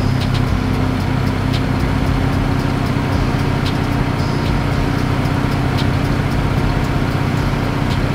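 A car engine idling steadily, a low even hum, with a few faint clicks over it.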